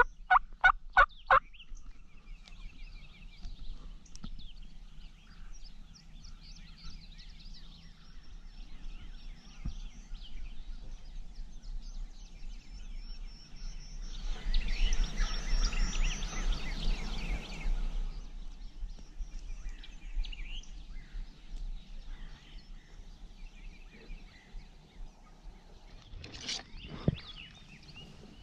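Wild turkey yelping, a loud run of about eight raspy notes in the first second and a half, with songbirds chirping faintly throughout. A few seconds of louder rustling noise come midway.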